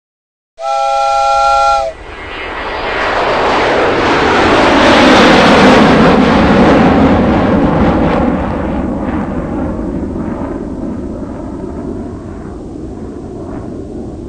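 A short horn-like blast of several held pitches at once, then a loud rushing noise that swells for a few seconds and slowly dies away.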